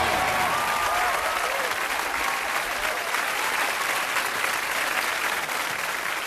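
Studio audience applauding, with a tail of music fading out in the first second or so; the clapping eases slightly near the end.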